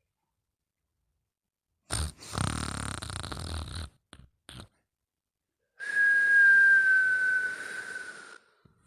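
Sleep snoring and whistling. About two seconds in there is a rattling snore on the in-breath. Near the end comes a whistling out-breath: one high whistle that slides slightly down in pitch and fades out.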